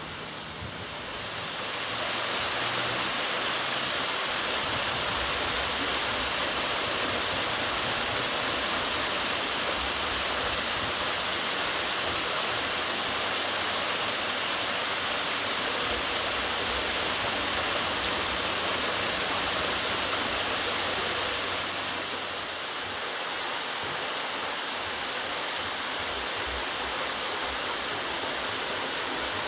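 Water pouring from a wooden flume onto an overshot waterwheel: a steady splashing rush that swells about two seconds in.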